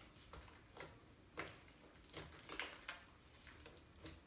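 Glue slime being kneaded and stretched by hand to work in laundry-detergent activator, giving about half a dozen faint, sticky clicks; the slime is still a little sticky.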